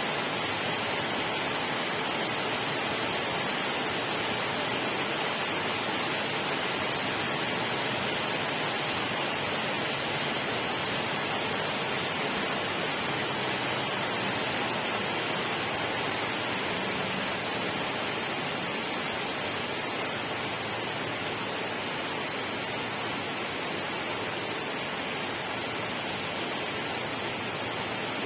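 Steady, continuous rush of water, an even hiss spread over low and high pitches with no distinct events.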